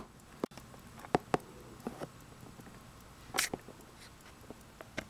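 Metal pocket watch case handled by hand: a sharp snap right at the start as the case back is pressed, then irregular light clicks and knocks of the Elgin watch's case against the fingers and the tabletop, with a louder cluster about three and a half seconds in.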